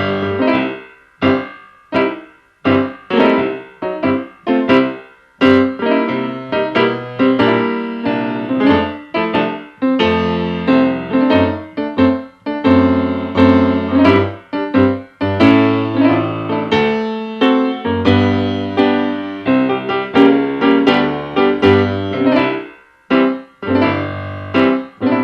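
Background piano music: a steady run of struck notes with chords and a bass line.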